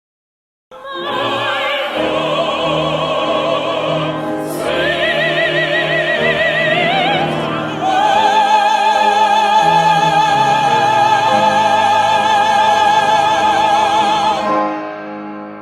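Operatic soprano singing with wide vibrato over accompaniment, the line climbing to a long held high note that closes the phrase and fades near the end.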